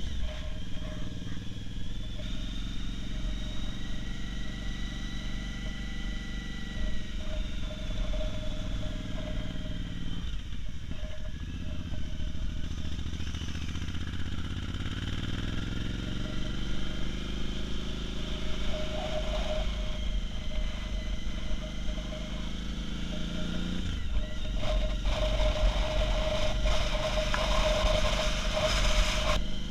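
Motorcycle engine running under way on a twisty road, its revs rising and falling through the bends, with wind rushing past the rider's camera.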